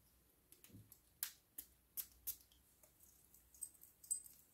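A few faint, short clicks from a small perfume bottle being handled: four spaced about half a second apart, then a few more near the end.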